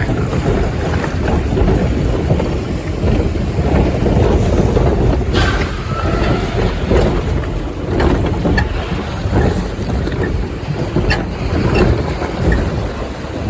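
Water rushing along a log flume channel as the log boat rides through, with wind buffeting the microphone and a few brief knocks.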